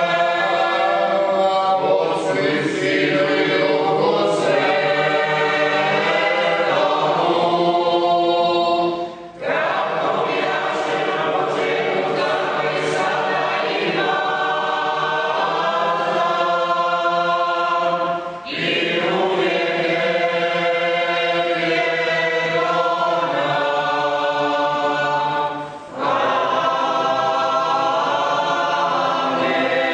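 Mixed choir of men and women singing Glagolitic folk church chant from Jezera on Murter island. The phrases are long and sustained, with three short breaks for breath.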